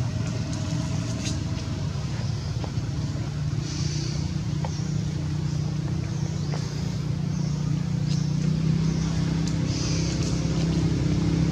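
A motor vehicle engine running steadily, a low hum that grows a little louder about eight seconds in, with a few brief high hissing patches over it.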